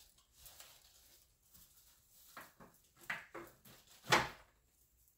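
Faint rustling and light handling knocks as cut rose stems and leaves are handled for a glass vase, with one sharper knock about four seconds in.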